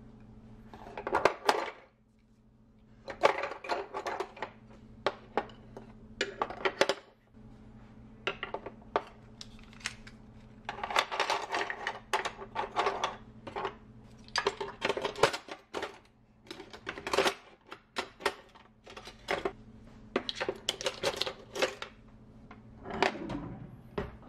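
Metal cutlery and wooden and ceramic utensils clinking and knocking as they are set into a bamboo drawer organizer, in irregular clusters of clatter with short pauses between. A low steady hum runs underneath.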